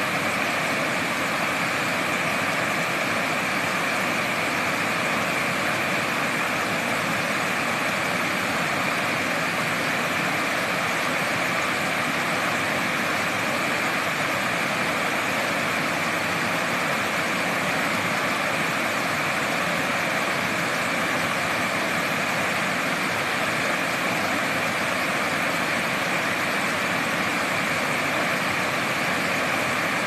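Stream water rushing over smooth rock slabs in a small cascade: a steady, even rush without a break.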